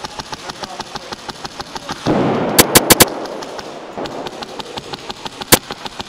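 Airsoft guns firing on full auto, a rapid, even string of sharp shots. About two seconds in, a rushing noise rises and four very loud bangs come in quick succession, with one more loud bang near the end.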